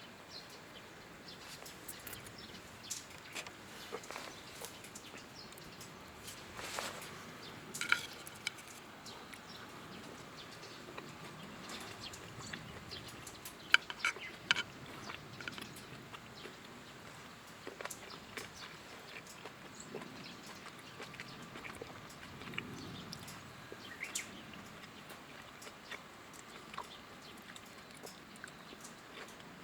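Hardwood fire burning in a Firebox stove, crackling faintly with scattered sharp pops over a soft steady hiss; the loudest pops come about 8 and 14 seconds in.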